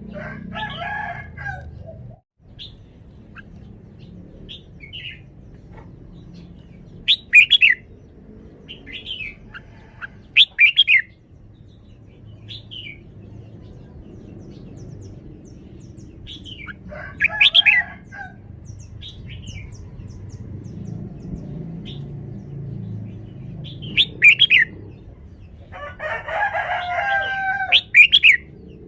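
Red-whiskered bulbul singing: short, loud whistled phrases every few seconds. Three longer, lower and harsher calls come in between: at the start, about halfway through, and near the end.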